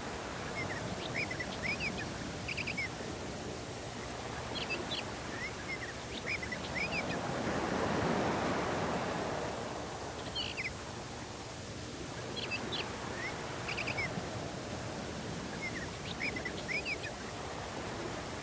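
Small birds chirping in short, quick clusters every second or two, over the steady hiss of a VHS recording. A broad rush of noise swells and fades about eight seconds in.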